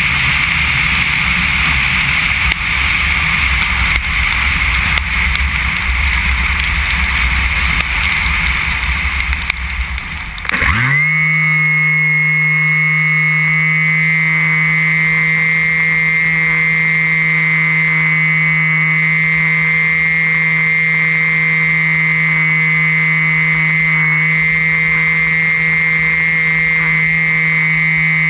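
Onboard sound of an RC plane in flight. For about the first ten seconds it is wind rushing past, with no steady motor tone. Then the Emax 1580KV brushless outrunner and 7x5 propeller spool up sharply in a rising whine and hold a steady high drone to the end.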